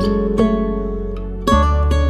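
Background music: a plucked-string instrumental with notes struck over a sustained bass line; the bass changes note about one and a half seconds in.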